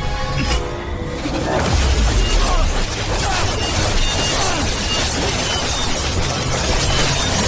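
Soundtrack of an animated fight scene: dramatic music under dense clash sound effects of magic energy and sparks. The effects fill in and become dense about two seconds in and stay loud.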